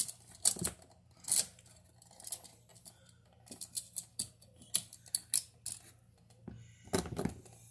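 Pliers clicking and scraping against solid copper wire as it is bent into a loop to go around a screw terminal: a string of small, irregular metallic clicks.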